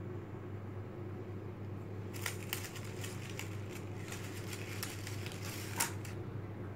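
Black pleated paper candy cups in a box of See's chocolates crinkling and crackling as fingers work a chocolate loose and lift it out. It is a run of quick crackles lasting about four seconds, sharpest near the end, over a steady low hum.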